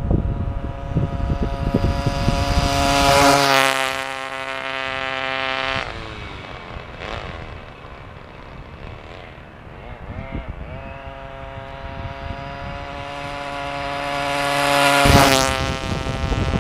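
An RC buggy's O.S. FS-26 four-stroke glow engine running at high revs. Its tone grows loud to a peak about three seconds in and holds steady, then falls in pitch and fades about six seconds in. It rises again to a second loud pass near the end, with wind rumble on the microphone at the start and end.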